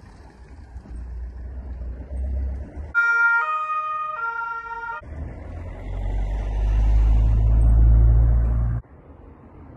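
Two-tone police siren sounding briefly, high-low-high, about three seconds in. Before and after it comes the low rumble of a car driving off, which builds to its loudest near the end and then cuts off suddenly.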